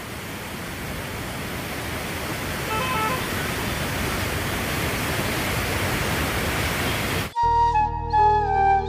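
Rushing, churning floodwater: a steady noise of turbulent water that grows louder over the first few seconds. About seven seconds in it cuts off abruptly and flute music starts.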